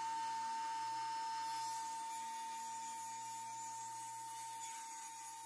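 A steady high-pitched electrical hum, one unchanging tone with a faint low hum beneath it.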